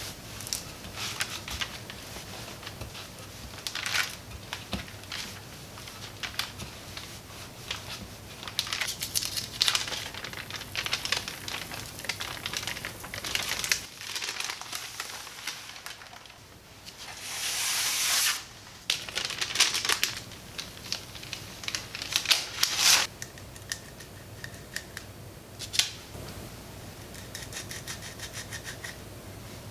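Parchment paper crinkling and crackling under a wooden rolling pin as dough is rolled out between two sheets. A denser rustle comes about halfway through as the top sheet is peeled back. Near the end there are soft ticks as a plastic round cutter is pressed into the dough.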